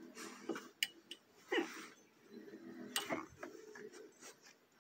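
Puppy rolling on wooden deck boards and chewing at its own leg: faint scattered clicks and scuffs of teeth and claws, with one brief sweeping sound about a second and a half in.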